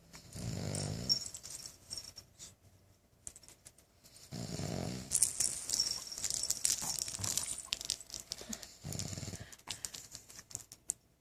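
A man snoring: three deep, rasping snores about four seconds apart, with faint rustling between them.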